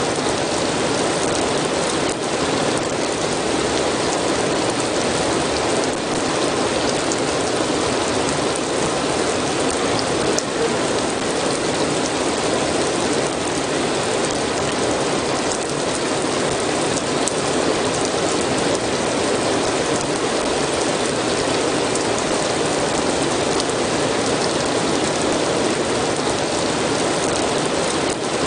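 Steady rain falling, an even hiss of drops on a surface with faint scattered patters.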